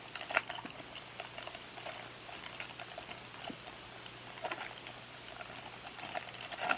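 A foil trading-card pack being torn open and handled, with irregular crinkling rustles and light clicks of the cards.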